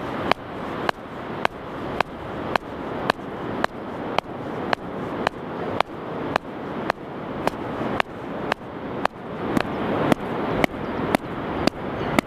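A wooden stake being driven into wet beach sand by repeated blows from a large hand-held stone: an even run of sharp knocks, about two a second.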